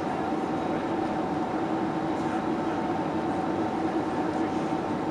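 Steady cabin drone inside a British Airways Boeing 767-300ER: an even rush of engine and airflow noise with two constant hums running through it.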